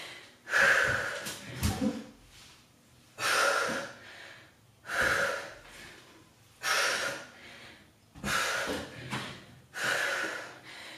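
A woman breathing hard during a dumbbell exercise: a forceful breath about every one and a half to two seconds, with a few dull thumps in between.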